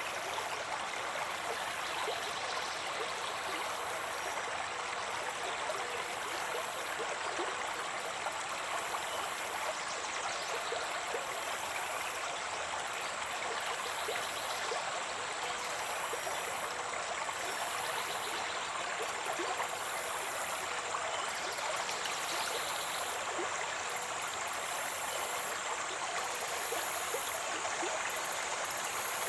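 Water of a stream flowing steadily, with a constant rushing and small splashes.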